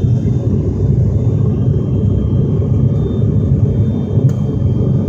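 Steady drone of an ATR twin-turboprop airliner's engines and propellers heard from inside the cabin in flight, with a faint steady high whine above it. One faint click about four seconds in.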